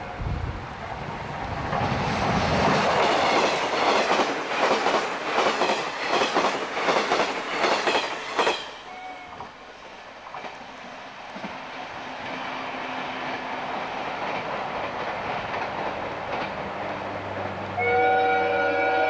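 JNR 485-series bonnet-nose limited express electric train passing at speed, its wheels clattering over the rail joints in a quick even rhythm for several seconds, then dropping to a steadier running hum as it draws away. Near the end a train horn sounds with a steady chord.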